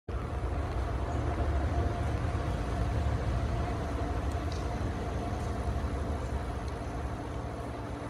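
Steady low rumble with a faint, even mechanical hum over it and no distinct events; the rumble eases slightly after the first few seconds.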